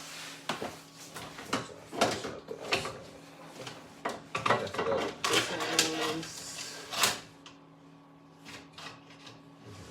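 Hands working wires and hardware in an electrical panel: a run of sharp clicks and knocks with scraping for about seven seconds, then quieter handling near the end.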